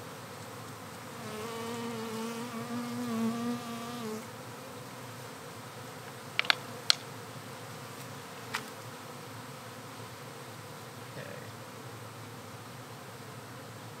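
Swarm of honeybees buzzing steadily in the air, with one bee droning close by for about three seconds near the start. A few sharp clicks come about halfway through.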